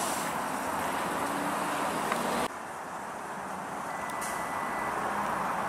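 CLRV (Canadian Light Rail Vehicle) streetcar rolling slowly around a track loop: a steady rumble and hiss of wheels and running gear with a faint motor hum. The level drops suddenly about two and a half seconds in, and a brief thin high tone sounds about four seconds in.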